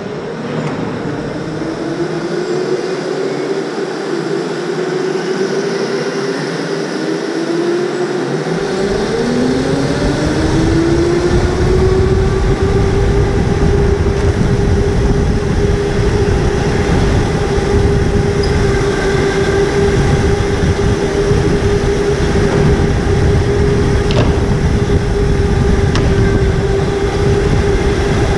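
Electric go-kart motors whining as the karts accelerate away: several rising whines over the first few seconds settle into one steady whine. From about eight seconds in, wind and road rumble on the helmet-mounted camera join it.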